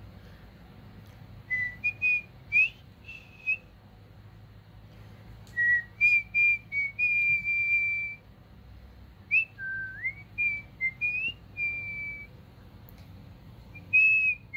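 A person whistling short chirps and longer held notes, some sliding upward, in a few phrases with pauses between.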